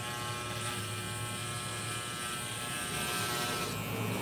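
Electric hair clipper running with a steady buzz, its loose blade just glued firmly in place so that it no longer rattles.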